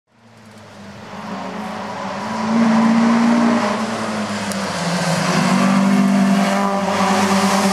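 Historic saloon race car's engine at full throttle on a hill-climb slalom run, approaching and passing close by. The engine note climbs, dips briefly about four seconds in, then pulls hard again.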